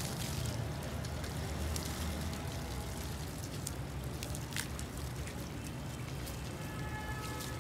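Water from a garden hose spraying and splashing onto a wet cow and the grass, a steady hiss with a few light clicks and taps.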